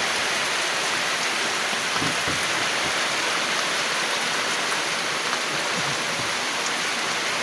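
Steady, even rushing of water, a dense hiss that holds at one level throughout.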